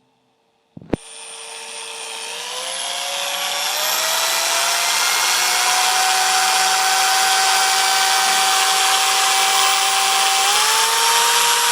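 Electric drill starting with a sharp click and running on steadily, its motor pitch climbing over the first few seconds and stepping up again near the end, as it bores a hole into the Rubens tube at a center-punched divot.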